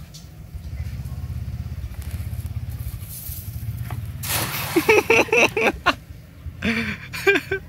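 Weighted cast net thrown out and splashing down onto the water about four seconds in, over a steady low rumble.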